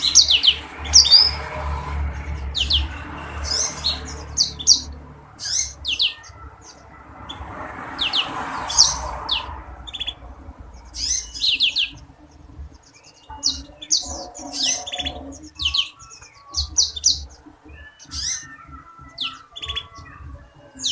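Black-throated canary (blackthroat) singing: a run of quick, high chirps and slurred notes in short phrases, over a low background hum. It is the kind of song played to a caged bird to get it to answer.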